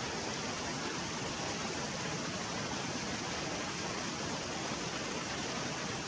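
Steady rush of a fast mountain stream tumbling over rocks.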